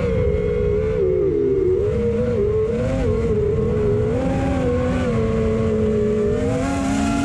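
FPV quadcopter's electric motors whining in flight, the pitch wavering up and down with the throttle, over wind rumble on the onboard microphone. The pitch jumps sharply near the end.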